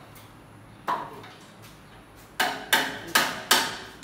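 Hammer blows on a steel chisel, each with a short metallic ring: one strike about a second in, then four quick strikes near the end.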